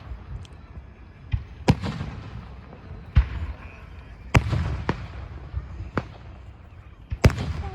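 Fireworks bursting: about five sharp bangs at irregular intervals, a second or more apart, each trailing off in a low rumble, the loudest near the end.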